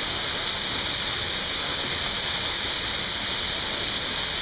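Waterfall pouring steadily over rock, a continuous rush of falling water.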